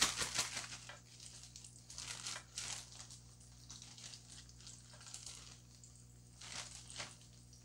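Plastic zipper bag holding seasoned flour and a piece of chicken, shaken hard for about the first second, then crinkling in short bursts as it is handled and opened, with a sharper crinkle about two and a half seconds in and another pair near the end.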